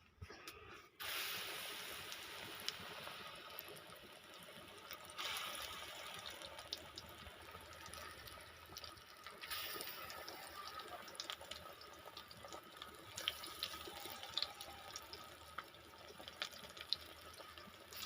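Water running from a tap, starting suddenly about a second in and going on with a steady rush, with a few small clicks and clatters on top.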